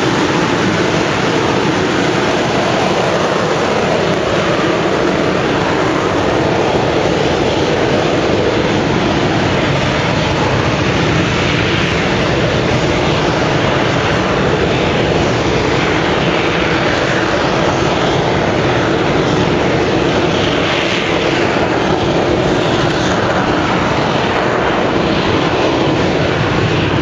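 TM65 Tordenskjold liquid-oxygen-fed rocket booster engine firing on a static test stand: a loud, steady rocket exhaust noise. It is a smooth burn with no oscillations in the engine.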